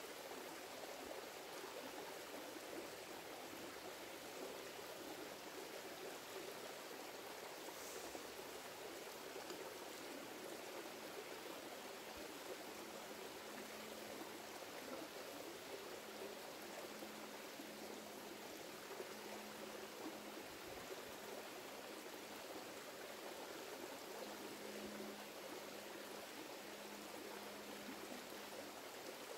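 Shallow rocky creek trickling over stones, a steady rush of water. A faint low hum comes and goes in the second half.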